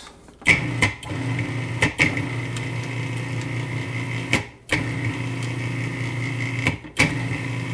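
Cuisinart Prep 11 Plus food processor motor run in three pulses, a steady hum with a click at each start and brief stops between, mixing dry flour, baking powder and salt.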